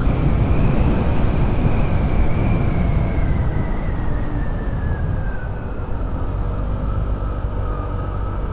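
Motorcycle under way, its engine running with steady road and wind noise, and a whine that falls slowly in pitch as the bike eases off.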